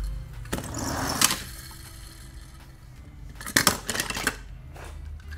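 Die-cast toy cars clattering against one another: a rustling scrape ending in a sharp click about a second in, then a quick run of clicks and knocks a little past the middle, as the pile of toys is handled.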